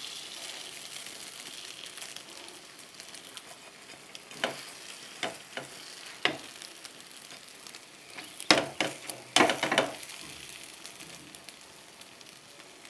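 Potato slices, tomato and beaten egg for an omelette sizzling in a nonstick frying pan, the egg just poured in and being spread with a spatula. The spatula scrapes and taps the pan a few times, most often about eight to ten seconds in.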